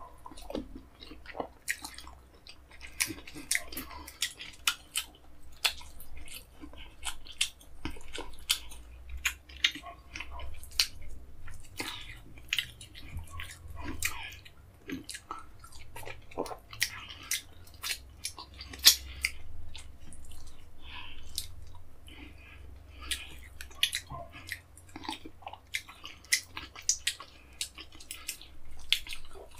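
Messy open-mouthed chewing of fufu and egusi soup: a steady, irregular run of wet smacks and sharp mouth clicks, several a second.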